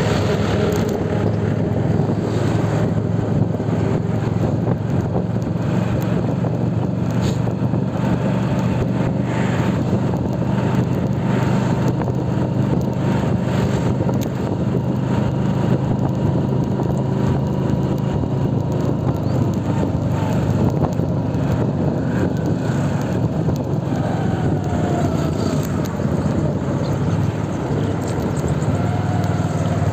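Motorcycle engine running steadily while riding, with wind noise rushing over the microphone.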